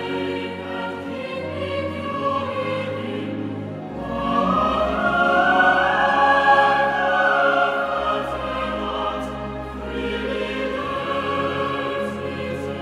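Choir singing a slow piece in long held notes, swelling louder about four seconds in and easing back after about eight seconds.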